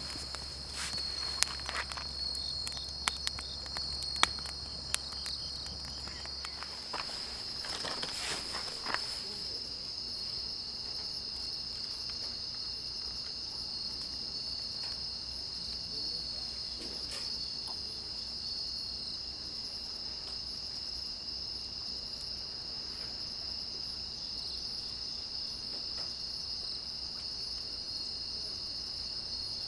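Steady high-pitched chorus of crickets or similar night insects, unbroken throughout. In the first nine seconds or so, scattered sharp clicks and handling noises sound over it.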